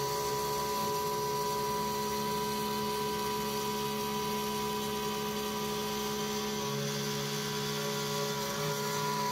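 Desktop CNC router's spindle running steadily, its end mill routing the outline of a mallet handle into maple board: a constant whine and hum.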